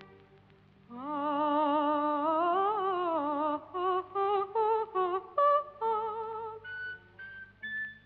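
A woman's soprano voice on an old recording, singing a wordless vocalise. After about a second of near quiet she holds a long note with wide vibrato that slides up and back down, then breaks into a run of short, detached notes climbing higher and higher.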